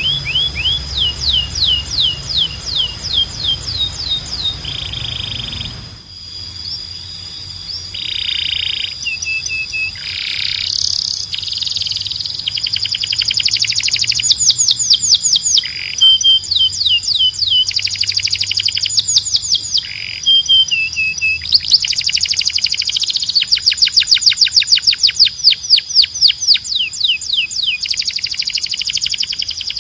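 Domestic canary singing: fast rolls of repeated downward-sweeping whistled notes and rapid trills, changing from phrase to phrase. About six seconds in, a low background hum stops abruptly as the recording switches to another song.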